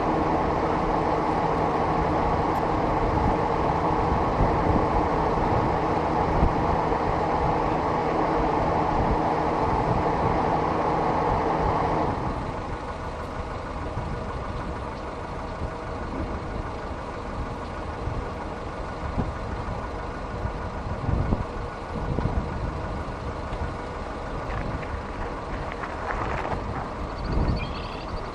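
A vehicle engine running with a steady hum, which cuts off abruptly about twelve seconds in. After that there is quieter wind noise with scattered low thumps.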